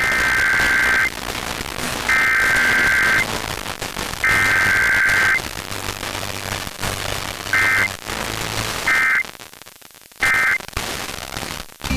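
Emergency Alert System SAME data tones: three long digital header bursts of about a second each, two seconds apart, then three short end-of-message bursts. They sound over a steady hiss of radio static, with a low hum under the middle bursts.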